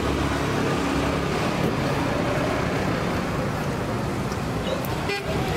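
Steady roadside traffic noise, with a brief dip near the end.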